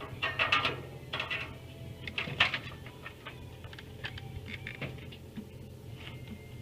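Irregular clinks and taps of metal being handled, loudest about two and a half seconds in, over a steady low hum.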